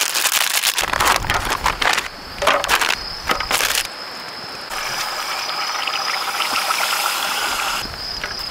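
Crickets chirping steadily while something is handled close by: a few seconds of rustling and clicking, then a steady hiss lasting about three seconds.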